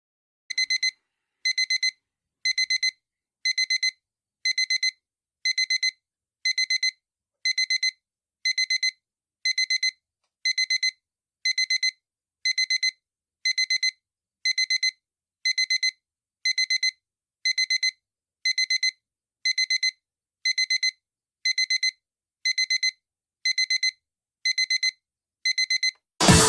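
Digital alarm clock beeping: quick groups of four high, pure beeps, one group about every second.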